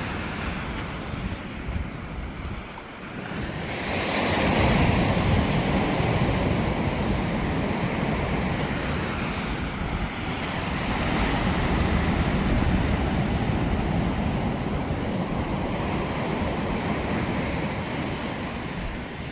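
Steady outdoor rushing noise of wind on the microphone, swelling about four seconds in and again around eleven seconds.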